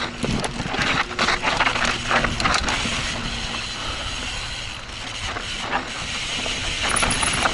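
Intense Tracer mountain bike descending a steep, loose dirt trail. The coasting rear hub ratchets, and the chain and frame rattle under rapid knocks from rough ground. The knocks come thickest in the first few seconds and again near the end.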